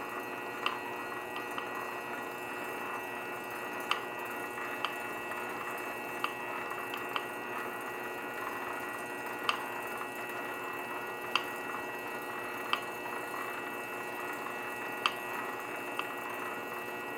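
Grizzly G0768 benchtop lathe running steadily with its motor's hum and high whine, turning a metal gas cylinder, with light sharp clicks every second or two at irregular times.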